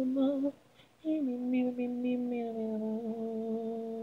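Isolated pop-song lead vocal sung a cappella with no accompaniment: a short sung phrase, a brief pause, then one long held note from about a second in that sinks slightly in pitch and wavers near the end.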